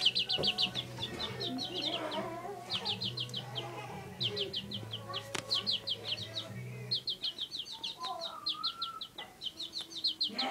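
A young cockerel clucking softly and making short calls, including a rising call about eight seconds in, against repeated bursts of rapid high-pitched chirping about a second long each. A low steady hum runs underneath and stops about seven seconds in.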